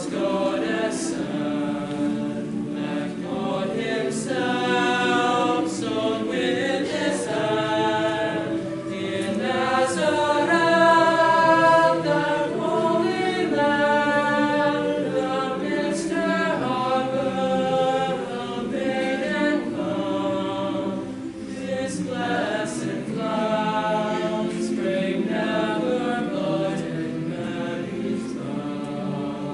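Mixed-voice madrigal choir singing a slow piece in sustained chords, swelling to its loudest about a third of the way through.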